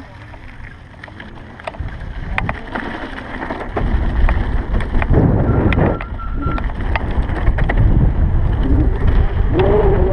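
Wind rushing over the camera microphone and the low rumble of a Stealth Bomber electric bike riding off, louder from about four seconds in as it gathers speed, with scattered clicks and rattles.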